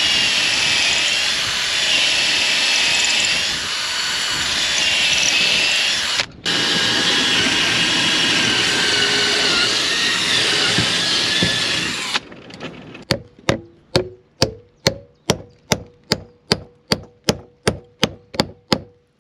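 A power drill running under load with a wavering high whine, briefly stopping about six seconds in. About twelve seconds in it gives way to some fifteen quick, even hammer blows, about two and a half a second, each with a short metallic ring.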